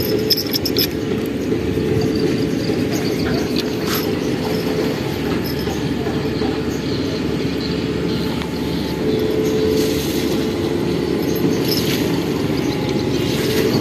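Steady low motor drone, with a humming tone that comes and goes.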